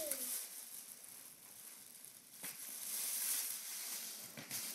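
Thin plastic bag rustling and crinkling as it is pulled off a plastic bucket, louder again about three seconds in.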